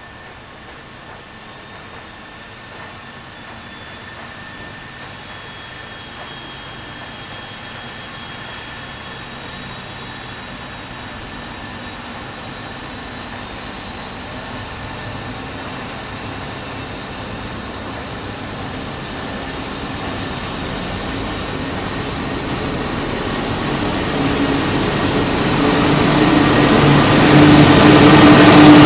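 An approaching freight train headed by three XRN-class diesel locomotives. A steady high-pitched squeal from the wheels on the rails comes in early and holds for much of the approach. The train grows steadily louder, and the locomotives' diesel engine rumble swells up strongly near the end as they reach the platform.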